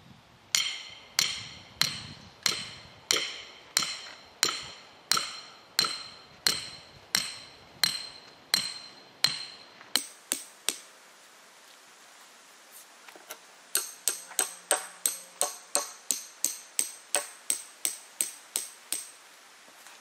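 Hammer blows securing stakes for 2x6 wooden concrete slab forms, each strike ringing. A steady run of about fourteen evenly spaced blows is followed by a short pause and a faster run of about fifteen quicker blows.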